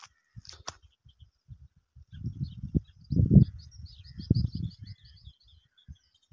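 Wind buffeting the microphone in low, uneven gusts, strongest in the middle. Over it, a small bird sings a fast trill of short, evenly repeated high notes during the second half.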